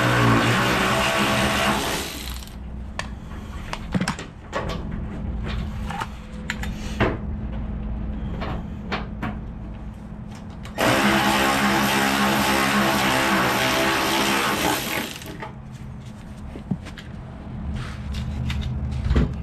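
Power tool motor running in two bursts of about four seconds, spinning bolts out of a truck bumper, with sharp metallic clicks and knocks in between.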